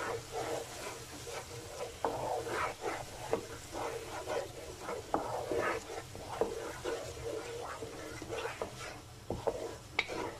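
A wooden spatula scraping and stirring a thick masala paste of ground fried onion, garlic, ginger and tomato as it fries (bhuna) in oil in a non-stick pan, with repeated irregular strokes over a low sizzle.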